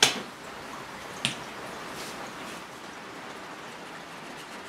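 Two sharp metallic clicks, one at the start and one about a second later, as a screwdriver works inside a small metal brake master cylinder body, then only a faint steady hiss.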